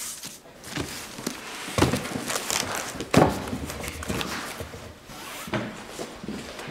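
Rustling, shuffling and light knocks of people packing up and moving about a room, with footsteps and a few louder thumps.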